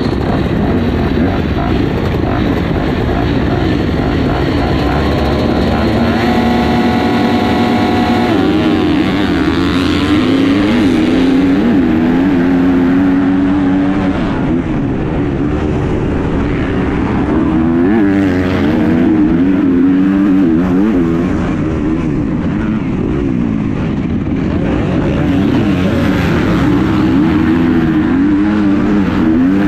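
Dirt bike engine racing, heard close up from on the bike: its pitch rises and falls over and over as the rider opens and closes the throttle and shifts, with a couple of seconds of steady high revs about a quarter of the way in.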